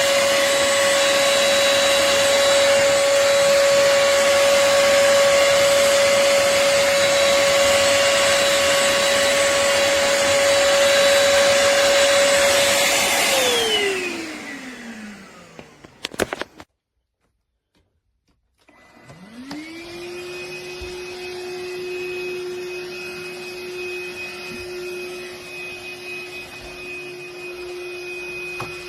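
Akitas V8 cordless stick vacuum running with a steady high motor whine and airflow hiss. About halfway through it is switched off and the whine falls away, there are a couple of clicks and a moment of silence, then the motor spins up again and settles to a quieter, lower-pitched steady whine.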